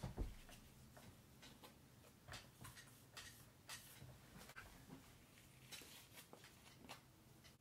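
Near silence with faint, scattered rustles and light taps of paper Peeps cut-outs being handled and pressed flat onto a tier board, a slightly louder tap right at the start.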